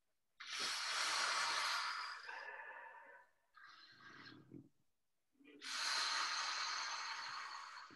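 A person taking deep, full diaphragm breaths close to the microphone. There are two long, loud breaths of about two seconds each, with a shorter, softer breath between them.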